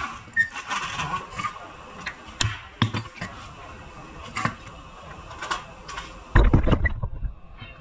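Hammer blows on a Nissan Maxima's steel front steering knuckle to knock the lower control arm's ball joint stud free, a handful of sharp metallic strikes over the first five seconds. A heavier low thump about six and a half seconds in is the loudest sound.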